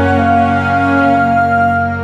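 Background music of long held notes.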